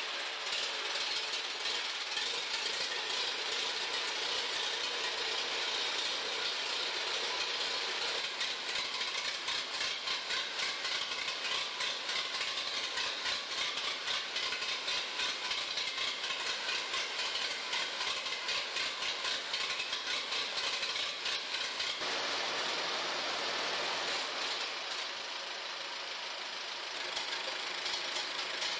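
Allis-Chalmers WD45 tractor's four-cylinder gasoline engine running at idle with an even, fast beat, on its first run after a full restoration. The sound shifts and drops slightly in loudness about three-quarters of the way through.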